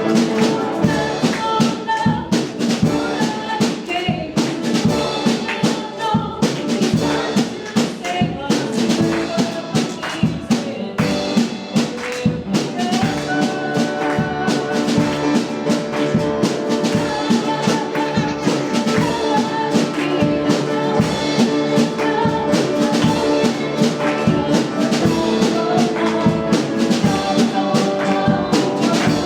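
Worship band music, with held melody notes over a steady drum beat.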